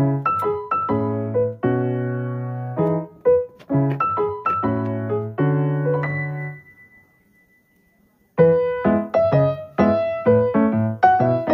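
Background piano music, a melody of struck notes that die away. It breaks off for about a second and a half a little past the middle, then resumes.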